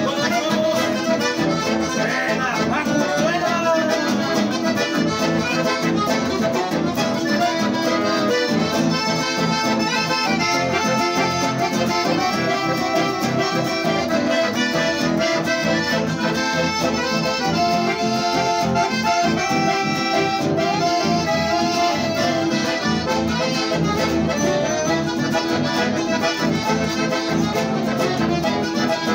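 A small folk ensemble of a piano accordion, a button accordion and two acoustic guitars playing an instrumental piece together, the accordions carrying the melody over strummed guitar chords.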